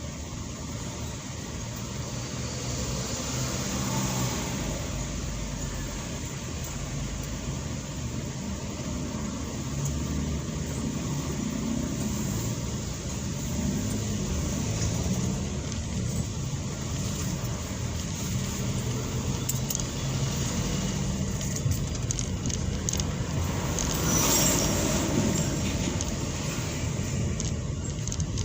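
Road traffic heard from inside a vehicle in slow city traffic: a steady rumble of engines and tyres, with a brief louder swell about 24 seconds in.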